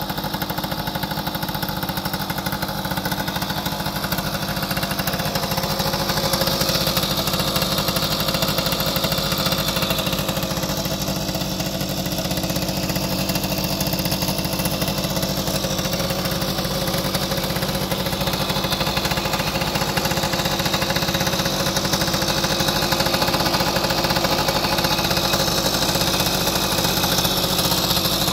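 1972 Balkan Mk 50-3 moped's 50cc single-cylinder two-stroke engine idling steadily.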